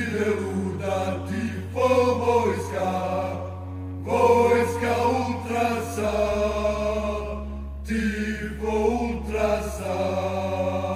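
Music: voices chanting together in unison over a held bass drone, the bass note stepping down about six seconds in and back up near the end.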